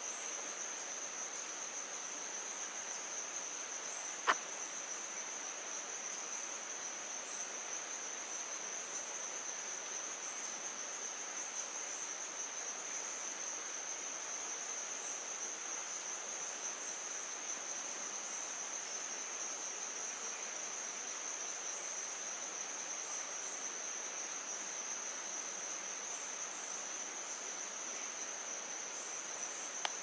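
Rainforest insects trilling in one steady, high-pitched unbroken note, with a single sharp click about four seconds in.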